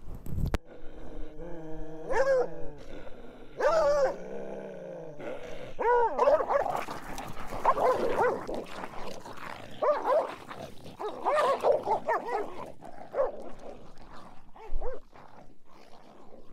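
A hound dog calling close by: a series of short high calls, each rising and falling in pitch. There are two at first, then a quick run of them from about six seconds in.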